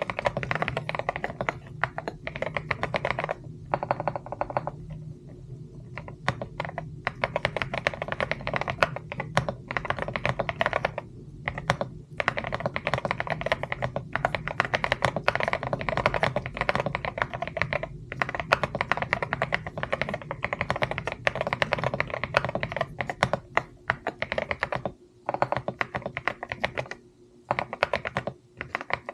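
Fast, continuous typing on a mechanical keyboard: a dense run of key clicks, pausing for about a second roughly five seconds in and briefly again near the end.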